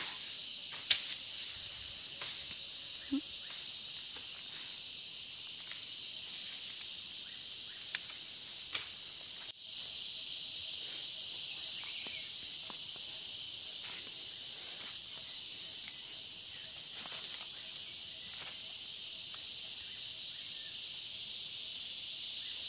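Steady high-pitched insect chorus droning without a break, with a few sharp clicks and snaps in the first half.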